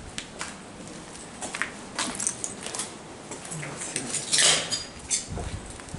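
Footsteps crunching and scraping over debris on a rubble-strewn floor, in irregular crunches and clicks. A louder scrape comes about four and a half seconds in, followed by a few dull thuds.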